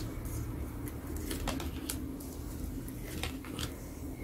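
Tarot cards being dealt one at a time onto a wooden table, making a few short taps and slides of card on wood, over a low steady hum.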